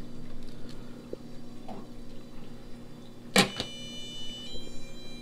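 Steady low hum of running aquarium sump equipment. About three seconds in comes a single sharp knock, and just after it a run of electronic tones starts, stepping from one pitch to another like an alarm or alert chime.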